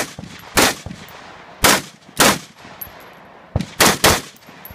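Semi-automatic rifle firing about six shots in three quick pairs, each crack followed by a short echo off the range berm.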